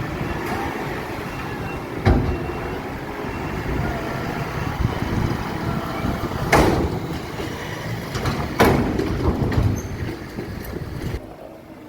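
Tractor engine running steadily as it rolls and packs grass on the silage pit, with three sharp knocks or bangs along the way.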